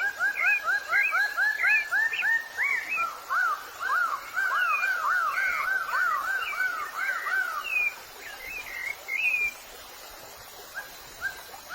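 Bird-of-paradise calling: a fast run of repeated rising-then-falling notes, about three or four a second, that stops about eight seconds in, with shorter, higher chirps scattered over and after it.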